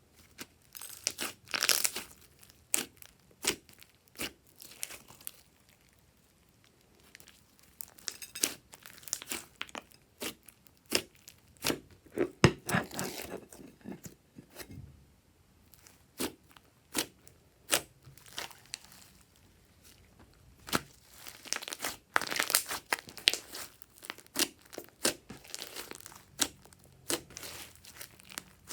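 Hands squishing, folding and stretching slime, giving sharp sticky pops and bursts of crackling at irregular intervals, busiest in three stretches with quieter gaps between.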